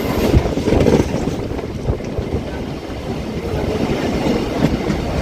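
Electric suburban local train running, heard from inside a carriage: a steady low rumble of wheels on the track with a few scattered knocks.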